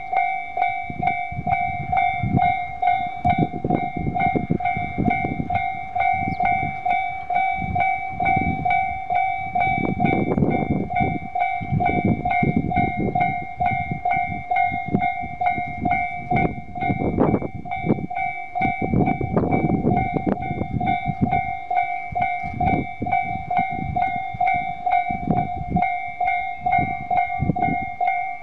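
A Tobu Railway level-crossing alarm ringing steadily in the tone most common on Tobu lines. A train passing through the crossing adds low rumbling and knocks, loudest about ten and nineteen seconds in.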